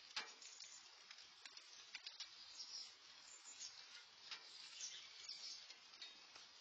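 Light rain falling, a faint steady hiss with scattered drops ticking close by, one sharper tick just after the start.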